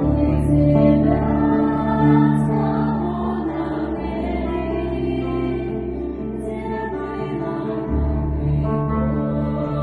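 Music: long held sung notes over a steady low drone, with faint high ticks every couple of seconds.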